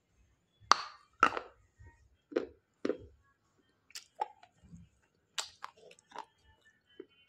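Close-up crunching and chewing of a piece of hard edible clay: two sharp, loud crunches about a second in, then a run of smaller crunches and chewing sounds.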